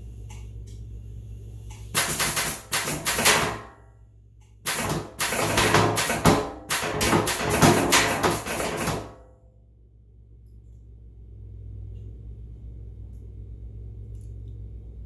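Lid of a steel-drum barrel prop rattling and banging up and down in two bouts of rapid knocks, a short one about two seconds in and a longer one of about four seconds, over a steady low hum.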